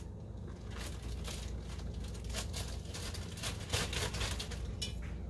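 Plastic bag crinkling and rustling as pancake flour is shaken out of it into a stainless steel bowl, a run of light scrapes and crackles over a steady low hum.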